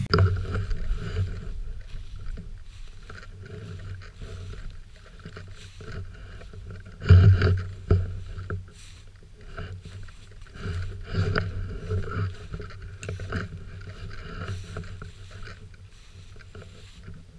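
Footsteps through tall dry grass, with stalks swishing and rustling against legs and the gun-mounted camera and low bumps of handling noise; a louder bump about seven seconds in.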